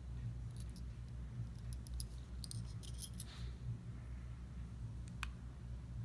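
Light clicks and scrapes of a small metal cowbell, covered in sticker paper, rubbed along the tip of a hot glue gun as its corners are heat-sealed. The clicks come in a cluster early and through the middle, with one sharper click a little after five seconds, over a steady low hum.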